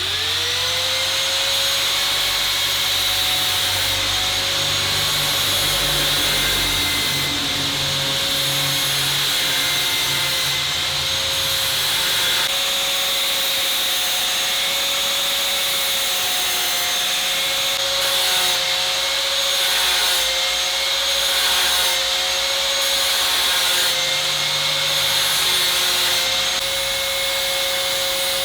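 Electric grinder spinning up at the start and then running at a steady pitch, with a loud abrasive hiss of grinding throughout.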